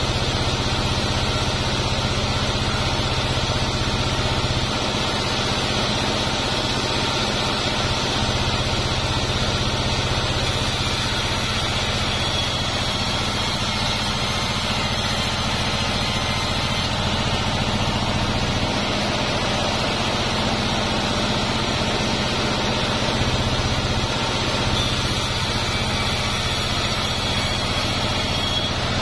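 Band sawmill running steadily while its blade rips a durian log lengthwise: a constant machine drone with a faint high whine over it.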